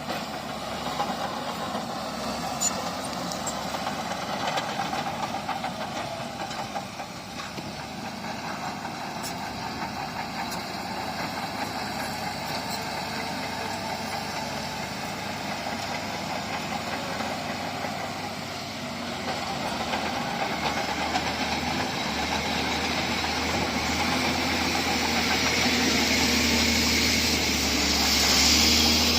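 Heavy earthmoving machine's engine running steadily, growing louder in the second half with a deeper rumble as it works harder or comes closer.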